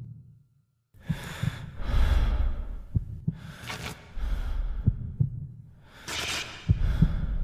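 Heartbeat sound effect, a double thump about every two seconds, four times, with loud breathing between the beats, leading into the soundtrack song.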